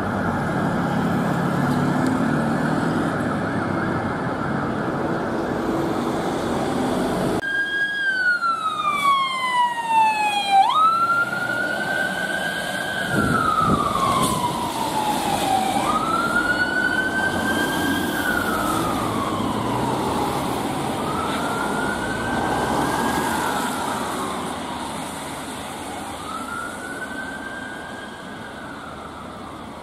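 City street traffic with bus and car engines running. About seven seconds in it cuts to a Volvo FE turntable ladder fire engine's siren on a slow wail, rising and falling about every five seconds and fading as the appliance moves away.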